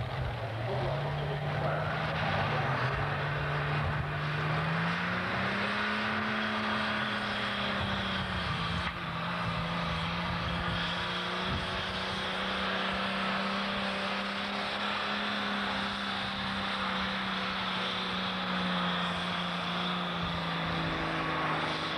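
Ford tractor's diesel engine under full load pulling a weight-transfer sled. The pitch climbs over the first six seconds, then holds at high revs with a slight sag near the end.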